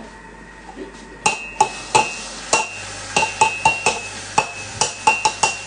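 About a dozen sharp, irregular taps, each with a short ring: a kitchen utensil knocking against a ceramic mug while an orange is being zested. A low steady hum sets in about halfway through.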